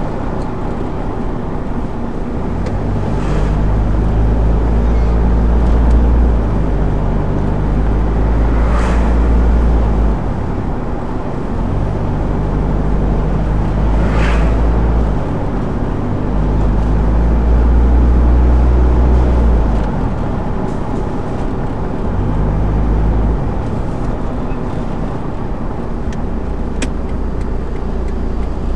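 Car driving along a town road, heard from inside the cabin: steady road and engine noise, the engine's low drone swelling and fading several times, with a few brief whooshes.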